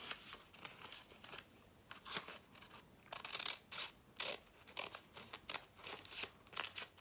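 Scissors cutting through folded paper: a run of short, uneven snips.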